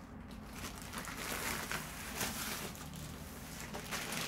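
Clear plastic protective sleeve crinkling and rustling in irregular bursts as it is slid off a rolled diamond-painting canvas.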